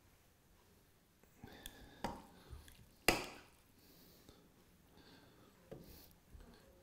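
Metal kitchen tongs serving spaghetti from a saucepan into a bowl: a few light clicks and knocks of the tongs against pan and bowl, the sharpest about three seconds in.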